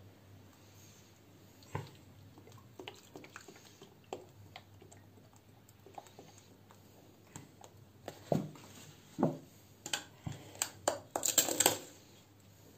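Milk poured from a carton over crushed ice and whipped coffee in a glass, with scattered light clicks and clinks of glass and utensils, then a run of louder knocks and clatter from about eight seconds in, loudest near the end.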